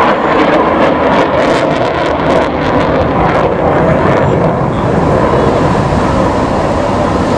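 Military fast jet flying a display overhead, its jet engine noise a loud, steady rush, with wind buffeting the microphone.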